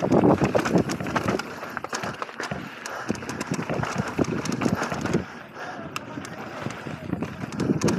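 Mountain bike riding down a dirt trail: tyres rolling over dirt and loose gravel, with the bike rattling and clattering over bumps throughout.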